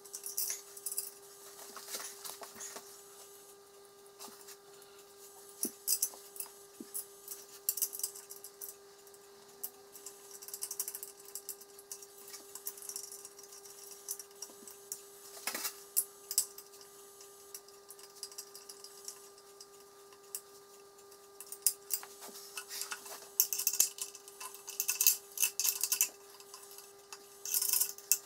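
Small metal clicks, taps and rattles of wheel hardware (axle bolt, washers and nut) being handled and fitted by hand onto an air compressor's steel tank, coming in scattered clusters. A faint steady hum runs underneath.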